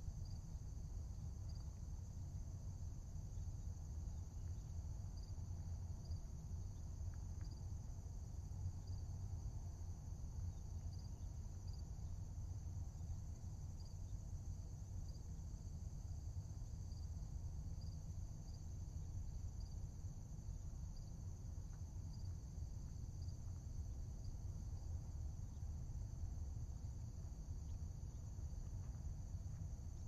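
Steady high-pitched drone of a rainforest insect chorus, with faint short chirps repeating every second or two, over a low steady rumble.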